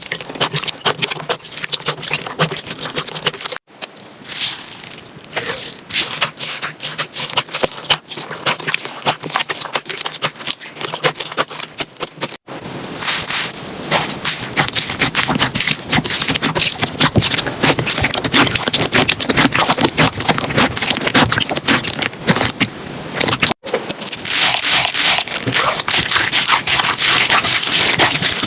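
Slime being squished and worked by hand: a dense, irregular run of crackles and clicks, broken by three sudden brief gaps about 4, 12 and 24 seconds in.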